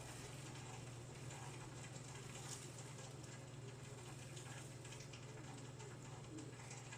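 Faint heart sounds heard through a stethoscope, the heart beating over a steady low hum.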